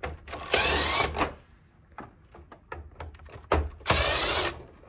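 Power screwdriver running in two short bursts about three seconds apart, backing screws out of the plastic cover panel of a ductless mini-split head, with light clicks and taps between.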